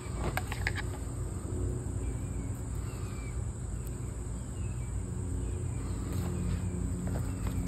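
Outdoor background with a steady low rumble and a constant high whine, a few light knocks of a knife against the wooden plank about half a second in, and faint bird calls.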